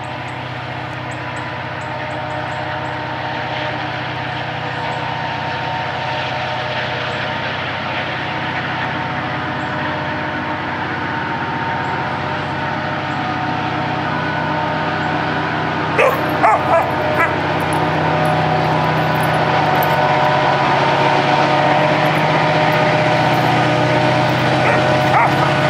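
A lone EMD SD40-2 diesel locomotive's two-stroke engine working hard as it pulls a train uphill, a steady drone with a held whine that grows louder as it approaches. A chained dog barks a few times about two thirds of the way through and once more near the end.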